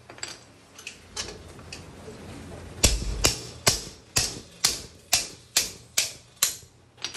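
Sharp taps or knocks of a hand tool working on the e-bike: a few scattered taps, then a steady run of about nine, roughly two a second.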